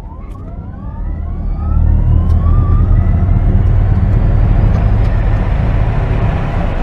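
Car accelerating hard from low speed, heard from inside the cabin: a whine rises smoothly without breaks while road and wind rumble build up and turn loud about two seconds in.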